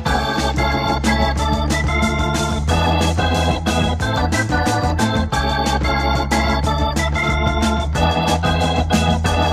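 Instrumental passage of 1970s progressive rock: sustained organ chords over bass guitar and a steady drum beat.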